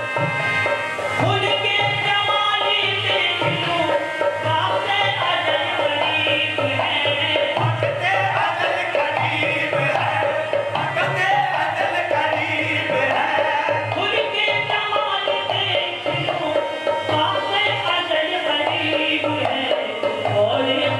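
Qawwali music: harmonium with a steady hand-drum rhythm, playing on without a break.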